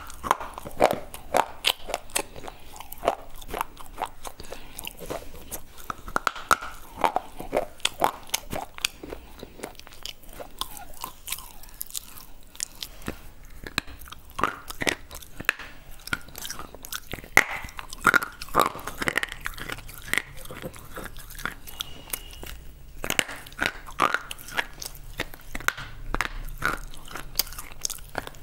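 A piece of white slate bitten and chewed right at a clip-on microphone: many sharp, irregular crunches and cracks, several a second, as the hard, brittle bits break between the teeth.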